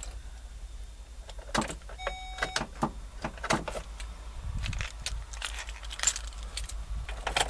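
A ring of keys jangling and clicking as keys are put into and turned in the ignition of a 2012 GMC Sierra that will not start, with a brief electronic chime about two seconds in. The technician suspects an unprogrammed transponder key is stopping it.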